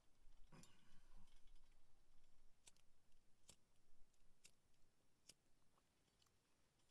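Near silence with a few faint, sharp clicks spaced about a second apart.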